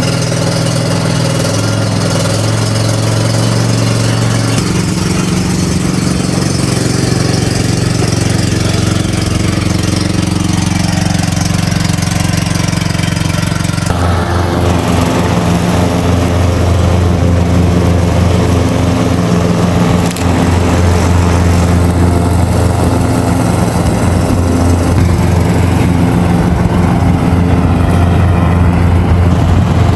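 Cub Cadet XT2 riding mower's 18-horsepower Kohler 5400 series engine running steadily just after being started, its tone shifting about five seconds in and more markedly about fourteen seconds in.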